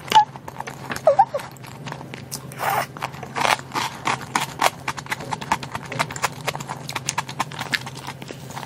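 Close-miked chewing and lip smacking: a rapid, uneven run of wet mouth clicks, with a few scrapes of wooden chopsticks in a plastic tub.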